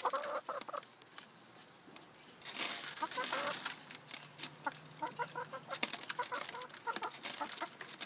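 Chickens clucking in short, repeated calls, with scattered sharp taps and a brief rustle about two and a half seconds in.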